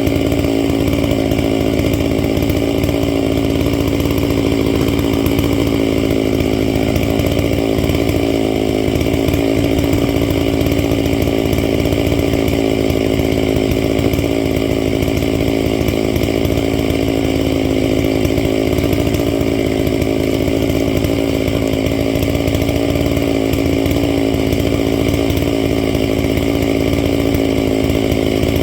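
Stihl MS 660 two-stroke chainsaw with a 36-inch bar and ripping chain running steadily at full throttle, ripping a log lengthwise along the grain.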